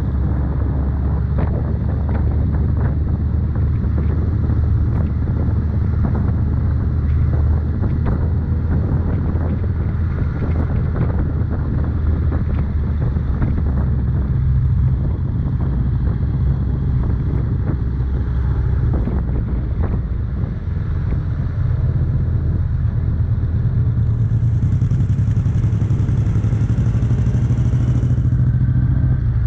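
Suzuki Hayabusa's inline-four engine running steadily while riding at road speed, with wind and road noise. The engine note steps up twice, about halfway through and again a few seconds later.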